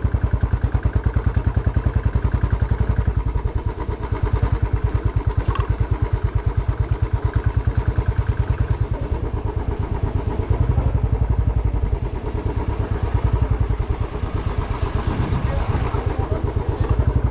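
Motorcycle engine running under way, its rapid firing pulses steady throughout, with the engine note easing briefly a few times.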